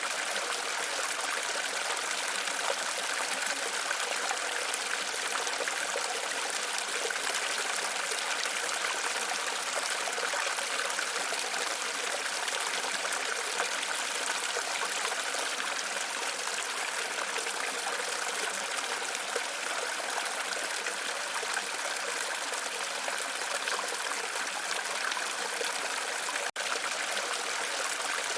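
Waterfall: a steady rush of falling and running water, broken by a momentary dropout near the end.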